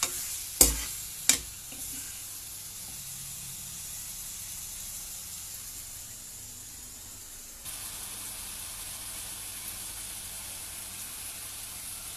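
Cubed pork sizzling as it fries in oil in a nonstick wok, with three sharp knocks of a spatula against the pan in the first second and a half. The sizzle then runs steadily, a little louder from about eight seconds in.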